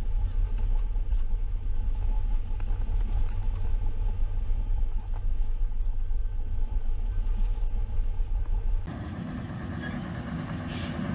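Steady low rumble of a truck's diesel engine and road noise heard from inside the cab while driving. About nine seconds in it changes abruptly to a steadier, fuller engine noise from a Claas combine harvester and the truck running side by side.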